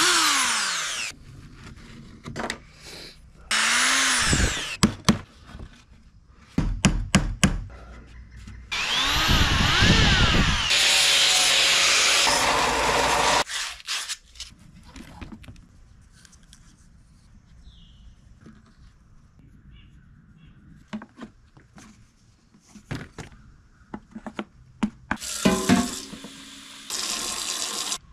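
Workshop power tools in quick succession: a heat gun blowing and winding down as it is switched off, motors spinning up and down, and a long stretch of grinding noise from a belt sander shaping wood, with scattered taps and knocks in between and another short stretch of tool noise near the end.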